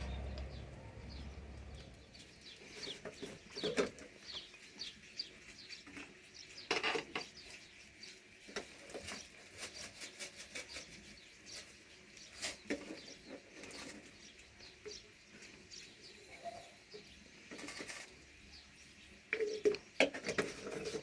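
Scattered light knocks and rustles with small high chirps, typical of birds and farm animals. A low rumble fades out over the first two seconds, and a cluster of louder knocks comes near the end.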